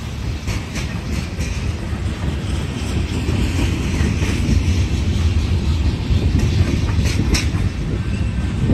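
Freight train's tank cars and covered hopper cars rolling past: a steady low rumble of wheels on rail, growing a little louder a few seconds in, with a few sharp clacks as wheels cross rail joints.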